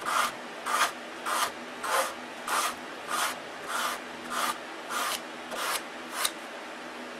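Sanding block rubbed back and forth over a balsa block wingtip in even strokes, about one and a half a second, stopping shortly before the end. The strokes sound hollow because the tip has been sanded thin.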